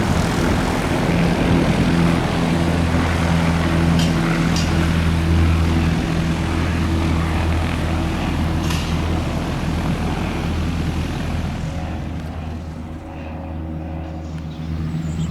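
Light aircraft's piston engine and propeller running at a steady pitch, loud at first, then gradually dying away over the last few seconds.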